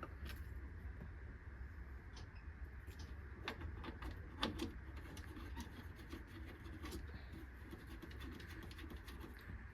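Faint, scattered light clicks and taps of parts being handled, a few seconds apart, over a low steady hum.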